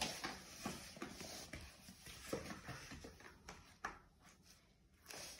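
Faint, scattered light knocks and clicks of small wooden toy house blocks being handled and set down on a foam play mat.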